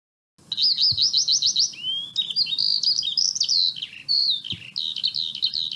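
Songbirds singing: a dense run of high, quick warbling phrases, chirps and trills, starting about half a second in.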